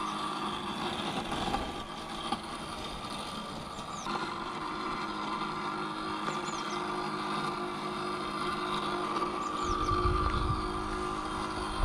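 Bosch Indego S+ 350 robot lawnmower running its electric blade and drive motors with a steady hum while cutting along the lawn border.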